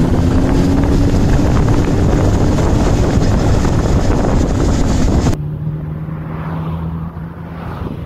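Heavy wind rushing over the microphone of a camera on a moving bicycle. About five seconds in it cuts to lighter wind noise with the steady low hum of a motorcycle engine running close behind.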